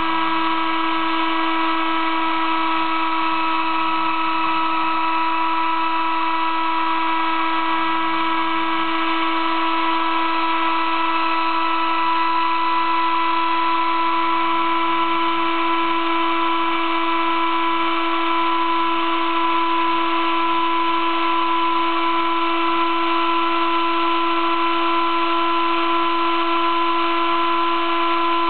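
Sable-2015 mini CNC mill engraving acrylic with a 20-degree V engraving cutter: the spindle runs with a steady high-pitched whine over the hiss of cutting. A fainter low hum comes and goes.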